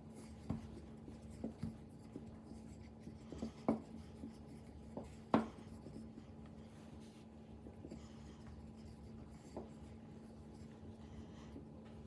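Rolling pin working mantou dough on a floured board: faint rubbing with a scattered handful of light knocks, the loudest about five seconds in, over a steady low hum.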